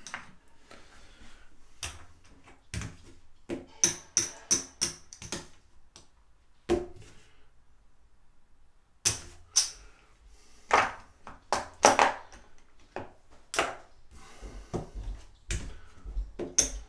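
Casino chips clacking against each other as they are counted out by hand, in several runs of sharp clicks with short pauses between.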